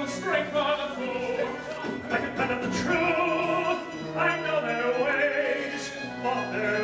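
Musical theatre performance: cast voices singing over a pit orchestra, taped from the audience.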